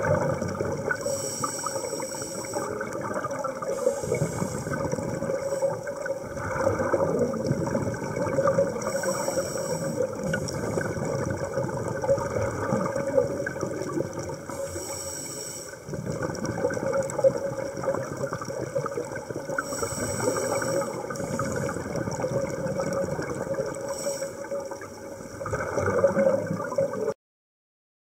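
Underwater sound of a scuba diver breathing through a regulator: a continuous watery rumble with bubbling bursts about every five seconds. It cuts off abruptly about a second before the end.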